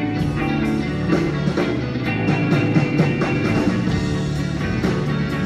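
Instrumental passage of a rock song: guitar playing over a steady beat, with no singing.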